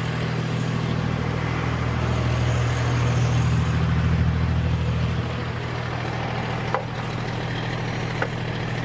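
Large rollback tow truck's engine idling steadily, a little louder for a few seconds in the middle before settling back. Two faint clicks near the end.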